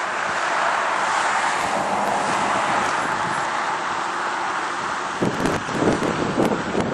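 Outdoor wind noise on the microphone beside a road: a steady rushing hiss that changes about five seconds in to uneven, gusty low buffeting.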